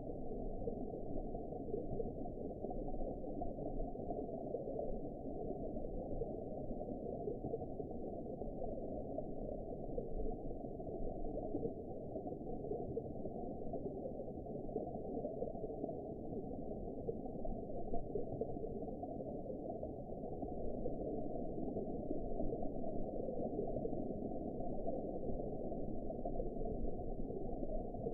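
Steady, muffled underwater ambience: an even low rushing wash with no higher sounds and no distinct calls or events.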